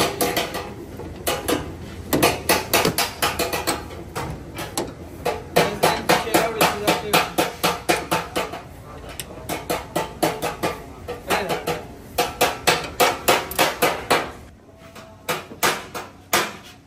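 Hammer blows on sheet-metal car body panel: panel beating to straighten crash damage. The strikes come in quick runs of several a second, with short pauses between runs.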